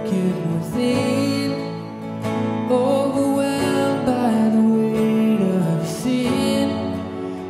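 A worship song: a man's voice singing to acoustic guitar.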